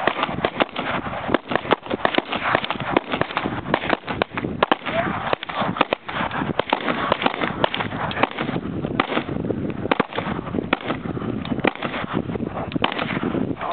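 Several guns fired at once in rapid, irregular volleys, shots overlapping several a second without pause.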